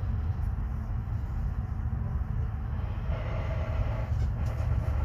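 Regional passenger train running, heard from inside the carriage: a steady low rumble of wheels on rail. A brighter, higher noise joins about three seconds in and fades about a second and a half later.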